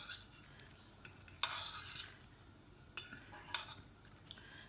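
A metal utensil scraping and clinking against ceramic plates in a few short strokes as diced tomatoes are scooped onto lettuce, the longest scrape about a second in.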